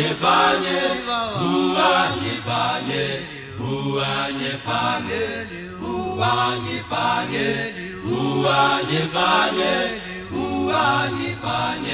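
Male vocal group singing a Sesotho gospel hymn in harmony, with low bass voices under the melody.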